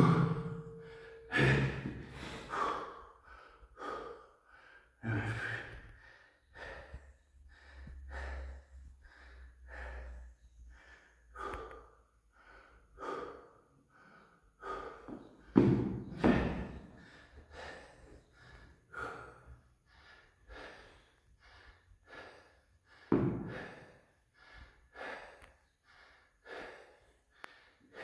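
A man breathing hard in short, forceful gasps and puffs, about one every second, while straining to hold a very heavy barbell on his back; a few breaths come out louder.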